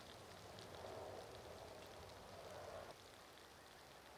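Near silence: faint outdoor field ambience, a soft even hiss that drops a little about three seconds in.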